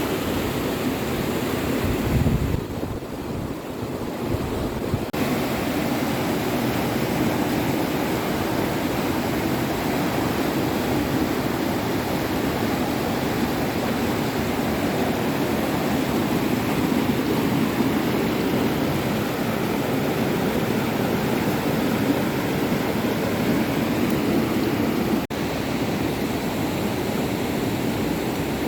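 Steady rushing noise, with a low thump about two seconds in and a brief dropout near the end.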